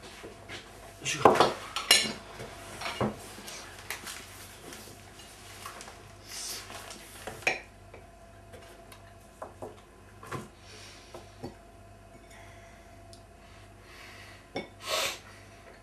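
Cutlery and dishes knocking and clinking during a meal at a table, with a table knife scraping on a slice of bread. The knocks come scattered and irregular, the loudest a cluster about a second in.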